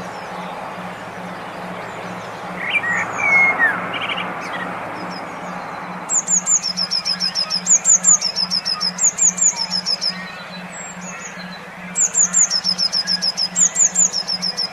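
Songbird recording: a few lower calls, then two long runs of rapid, repeated high chirping notes, each lasting several seconds, over a steady low pulsing hum and background hiss.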